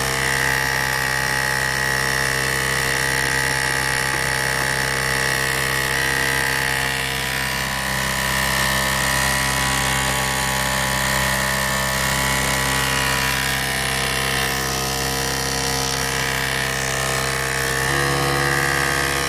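Small electric motor running steadily: a continuous hum with a high whine over it, the low hum shifting in pitch near the end.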